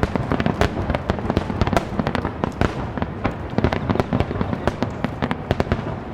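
Starmine fireworks barrage: aerial shells bursting in rapid succession, many sharp bangs a second overlapping one another.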